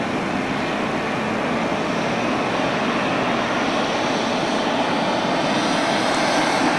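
Approaching road traffic, a trolleybus and a car: a steady rushing noise that grows slightly louder toward the end.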